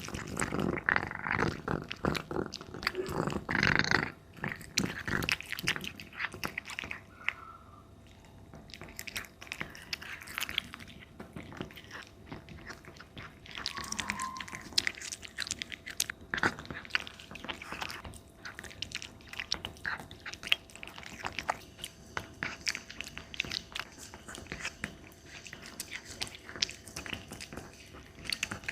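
Domestic cat eating meat: a long run of chewing and crunching bites, loudest in the first four seconds.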